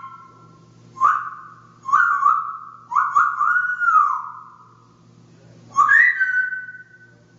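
African grey parrot whistling loudly: four separate whistled phrases. The third is the longest and rises and falls in pitch, and the last steps down from a higher note to a held lower one.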